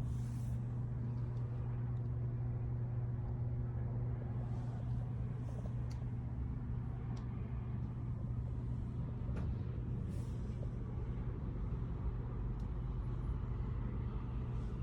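Wazor Pro 1875W ionic hair dryer running steadily: a low, even motor hum under the rush of blown air.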